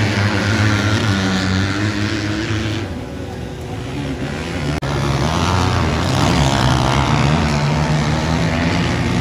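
Motocross bikes' engines revving hard and shifting as riders accelerate out of a turn and past on the dirt track, the pitch rising and falling with each gear change. The sound dips about three seconds in, then comes back loud a little before halfway.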